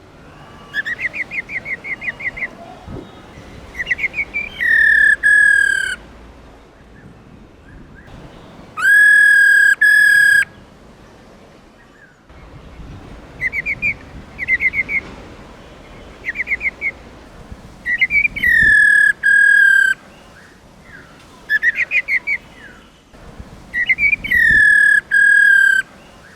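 Female black-throated laughingthrush calling loudly. Quick runs of short chattering notes alternate with long whistled notes that drop slightly in pitch and then hold, repeated several times.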